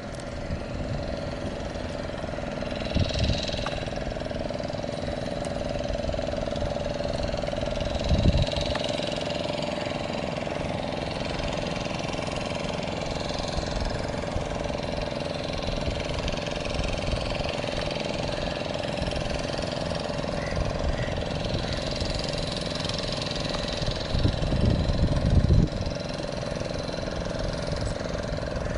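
An engine runs steadily with an even hum over a low rumble, with a few louder low rumbles about eight seconds in and again near the end.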